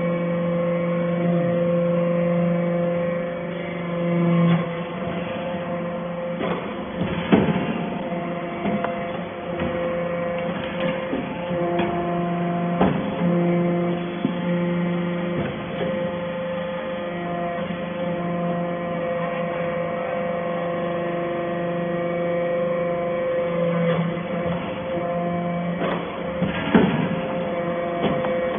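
Hydraulic scrap-metal baler for steel chips running: a steady machine hum whose lower tones drop out and come back several times, with a few sharp knocks along the way.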